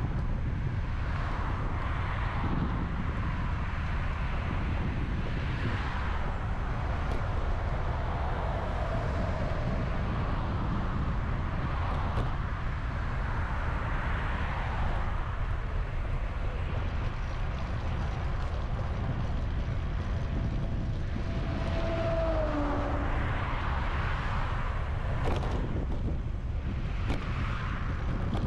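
Wind buffeting the microphone with a steady low rumble while riding along a road, with road noise swelling and fading several times. A brief, slightly falling squeak comes about three-quarters of the way through.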